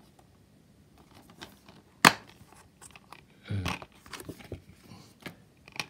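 A plastic Blu-ray case snapping open with one sharp click about two seconds in, followed by softer handling noises of the case.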